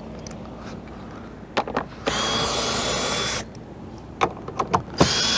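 Cordless drill with a hex nut driver backing quarter-inch hex head screws out of a plastic cover. It makes two runs of about a second and a half, each a steady motor whine. Short clicks come before each run as the bit is set on the screw, and the second run starts near the end.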